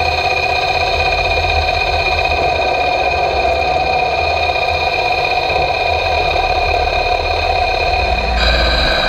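Hapfo CNC woodturning lathe running while it turns a sapele blank: a steady machine hum made of several even tones over a low drone. A little over eight seconds in, the tones shift suddenly to a different set.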